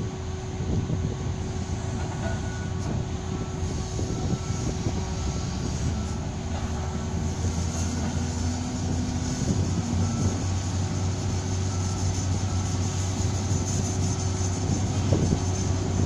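Crawler crane's diesel engine running steadily, a low drone that grows a little louder in the second half.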